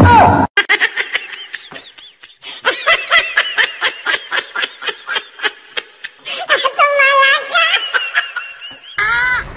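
A person laughing hard in a long run of rapid, high-pitched giggling bursts. About a second before the end it switches to a high, wavering cry.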